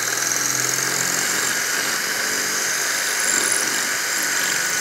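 Flex cordless drill driver running steadily, its bit grinding down into a cinder block. The drill is spinning the bit only, with no hammer action.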